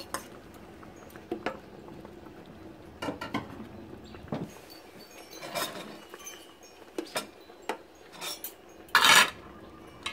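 Ceramic bowls and a metal ladle clinking and tapping against a stainless-steel hot pot as soup is dished out: scattered light clinks and knocks, with a brief, louder rush of noise about nine seconds in.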